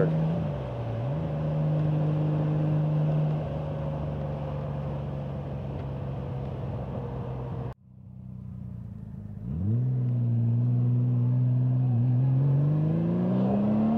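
Honda Gold Wing GL1500's flat-six engine running at steady cruise, its revs dipping briefly and recovering about a second in. About two-thirds through, the sound cuts off abruptly. The engine then comes back at low speed, and its revs climb steadily before dropping again near the end.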